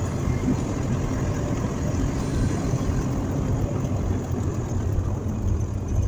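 Truck engine running and tyres on the road while driving, heard from inside the cab as a steady low rumble.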